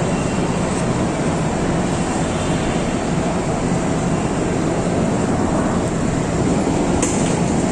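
Steady rush of wind and road noise on a moving motorcycle, heard from the pillion seat.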